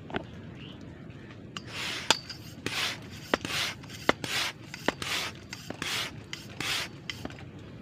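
High-pressure PCP hand pump being worked to charge an air rifle. Starting about a second and a half in, it gives about seven rhythmic hissing strokes roughly 0.7 s apart, with a sharp click on most strokes.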